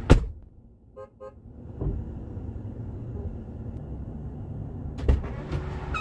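A truck door thumps shut, and about a second later the Ford F-150's horn gives two quick, muffled beeps: the double honk that warns the key fob has left the truck while the engine is still running. The idling truck and its air conditioning then hum steadily, with another door thump about five seconds in.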